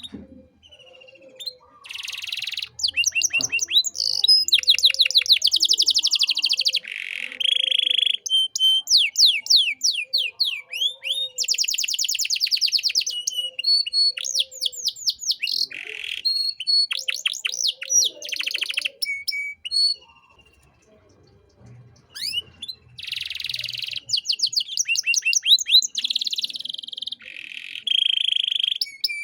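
Domestic canary singing a long, varied song of rapid trills and rolls mixed with short high whistled notes, with a pause of about two seconds two-thirds of the way through.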